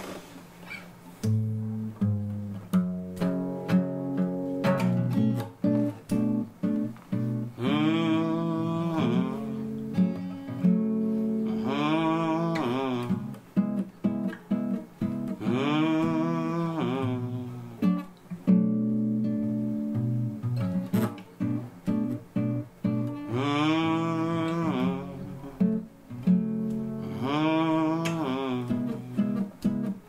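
Acoustic guitar played steadily, with a wordless vocal line that rises and falls over it in about five short phrases.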